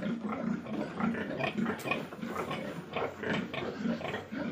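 Pigs grunting in a steady run of short grunts, several a second.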